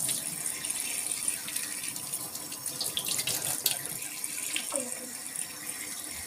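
Kitchen tap running into a stainless steel sink, the stream splashing unevenly as mushrooms are rinsed by hand under it.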